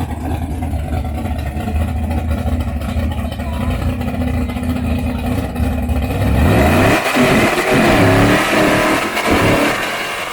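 Modified, tuned vehicle engine idling steadily, then revved several times over the last few seconds, its pitch sweeping up and falling back with each blip of the throttle.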